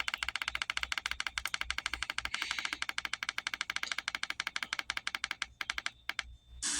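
Rapid, even clicking, about a dozen clicks a second, as a radio's tuning control is stepped up the FM dial toward 99.9. The clicking stops about six seconds in, and the radio's hissy audio comes in at the very end.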